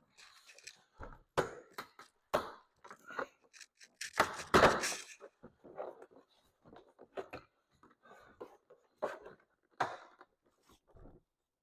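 Irregular clicks, knocks and scrapes of hand work on a car's interior door panel: tools and plastic trim being handled. The loudest clatter comes about four and a half seconds in.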